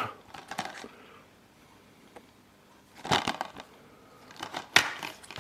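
Plastic Blu-ray case being handled and opened: scattered rustling and crackling, with a louder stretch about three seconds in and a sharp click near the end.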